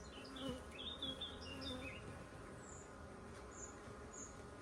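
Honey bees buzzing as a colony in an opened hive, a steady low hum. It comes from a calm colony that is not agitated. Short high chirps sound over it.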